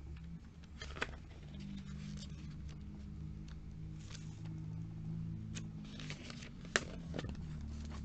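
Glossy catalogue pages being turned by hand: soft paper rustles and several sharp page snaps, the loudest about a second in and again near the end, over a low steady hum.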